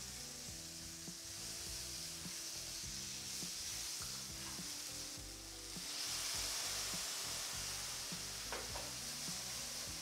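Butter, nuts and halved cherry tomatoes sizzling in a hot frying pan as a spatula stirs them. About six seconds in, a stream of liquid is poured in and the sizzle gets louder.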